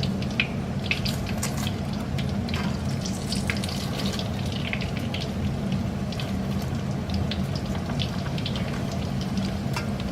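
Rice-paper egg rolls deep-frying in hot oil on their second fry: a steady sizzle with many small irregular crackles and pops. A low steady hum runs underneath.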